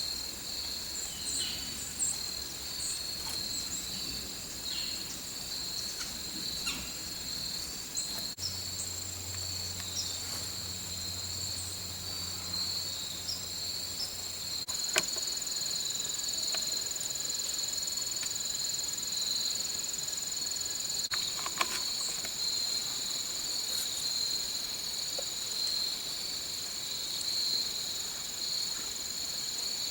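Steady, unbroken chorus of crickets chirring in the woods, high-pitched and continuous. A faint low hum runs under it for about the first half and stops.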